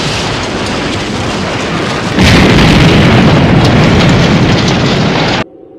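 Loud explosion sound effect: a rushing roar that jumps into a heavier, deeper blast about two seconds in, then cuts off abruptly near the end.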